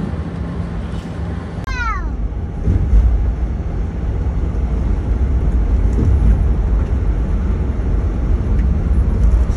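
Steady low rumble of engine and road noise from a coach bus driving on a highway, heard from inside the cabin. About two seconds in, a brief falling tone with several overtones sounds over it.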